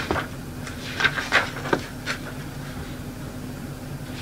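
About five short knocks or clicks in the first two seconds or so, over a steady low hum; after that only the hum continues.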